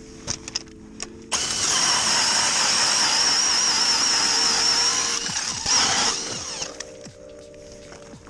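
A small engine running loud, cutting in suddenly about a second in and fading out after about six seconds, with a wavering high whine, over background music.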